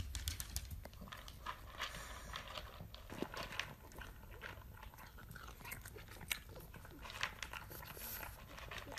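A pug eating from a plastic food bowl: a run of irregular crunching and chewing clicks, with the bowl knocked now and then.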